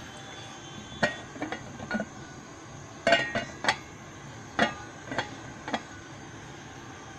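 Aluminium lid of a pot of boiling rice clinking against the rim, about nine sharp metallic taps at irregular intervals, as the steam lifts and drops it. A steady hiss runs underneath.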